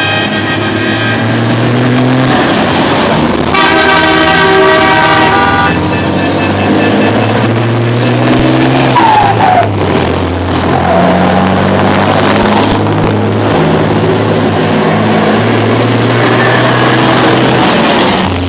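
Loud vehicle horns sounding long sustained tones that step from one pitch to another every second or two, the strongest blast about four seconds in.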